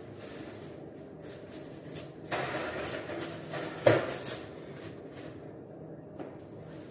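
A foil-covered roasting pan slid onto a metal oven rack, scraping and rattling for about two seconds and ending in a sharp clank about four seconds in, over a steady low hum.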